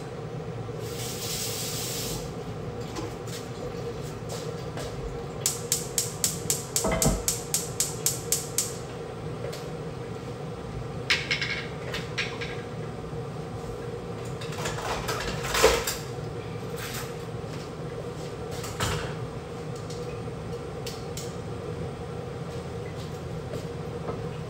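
Kitchen sounds over a steady hum: a short hiss near the start, a quick run of about a dozen evenly spaced clicks a little after five seconds in, and scattered knocks and clatters of cookware, the loudest about fifteen seconds in.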